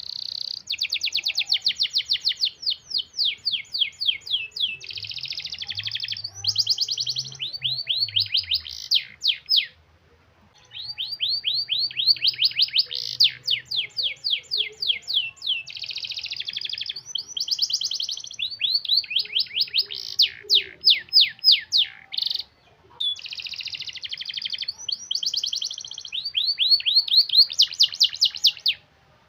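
Domestic canary singing long, tight rolls: fast runs of repeated high notes and trills, in phrases broken by short pauses about ten and twenty-two seconds in.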